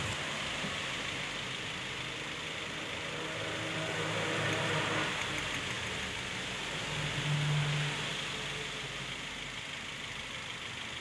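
Toyota Rush four-cylinder petrol engine idling with a steady hiss, its note swelling briefly about four seconds in and again about seven seconds in. The engine is misfiring ('pincang'), which the mechanic traces to a failed ignition coil, and the coils are being lifted out one at a time to find the dead cylinder.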